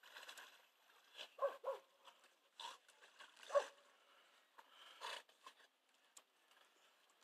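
A dog whimpering faintly in a few short, separate bursts.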